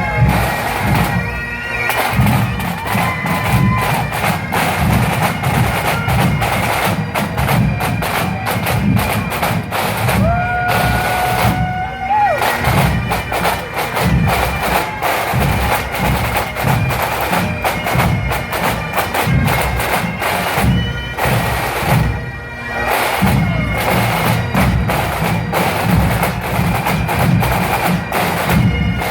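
Massed pipe band of many bagpipes and drums playing together: steady piping over a constant beat of snare and bass drums.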